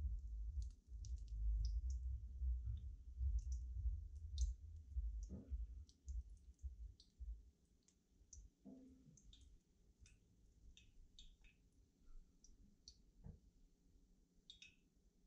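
Sparse light clicks and crackles as fried doughnuts are lifted out of hot canola oil with silicone-tipped tongs. A low rumble runs under the first half.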